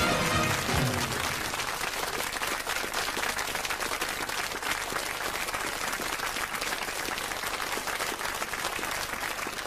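Studio audience applauding steadily. The last notes of the theme tune fade out in the first second.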